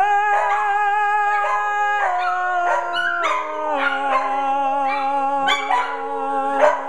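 Several pet dogs howling together in a chorus, their voices holding long notes and sliding between pitches, with a sharp yip near the end.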